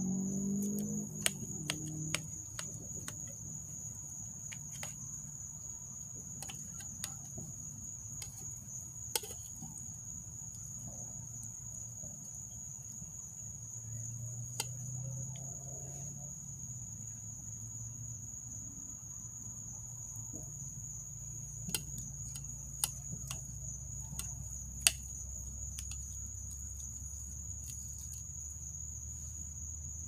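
Night insects, crickets, chirring together on one steady high-pitched note, with a few sharp clicks scattered through. A low rumble grows underneath in the second half.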